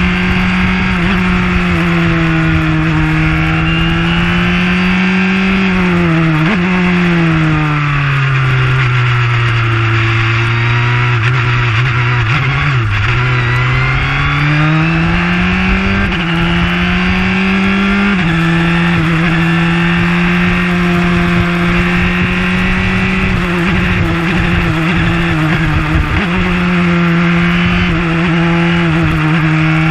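Onboard sound of a JAF-F4 formula car (ZAP F108) engine running hard. Its note sags and drops in steps about six seconds in as the car slows. It climbs steadily back, then breaks at upshifts around sixteen and eighteen seconds and holds high.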